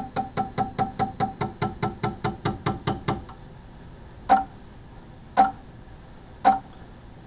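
Marathon SyMAX IPM motor's windings beeping as a Mitsubishi F800 drive pulses test signals into it during a static auto-tune, with the shaft standing still. The beeps come quickly, about five a second, stop about three seconds in, and are followed by three single beeps about a second apart as the tune winds down.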